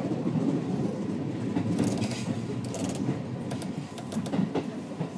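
Commuter train running along the track, heard from inside the carriage: a steady rumble with irregular clicks and knocks from the wheels and rails.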